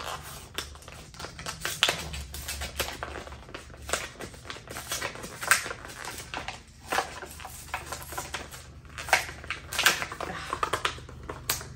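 Paper envelope being opened and its letter handled: irregular rustling and crackling of paper with a few sharper crackles scattered through.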